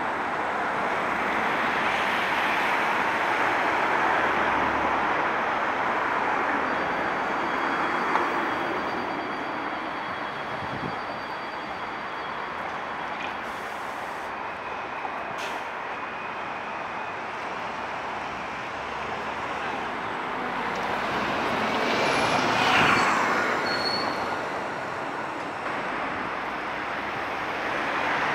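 Steady road and rail traffic noise at a street bus and tram stop, with a bus standing at the stop. It swells twice, and near the end there is a brief high squeal.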